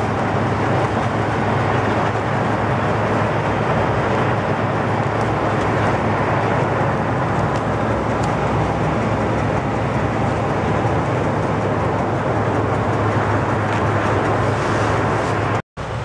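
A steady engine drone, running evenly without a break, with a brief cut near the end.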